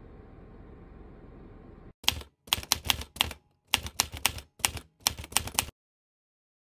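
Typing sound effect: quick runs of key clicks in about five clusters with short gaps, starting about two seconds in and cutting off suddenly near the end. Before it, a low steady room hum.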